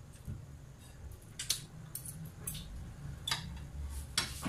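About five short, sharp clicks at irregular intervals over a faint, steady low hum.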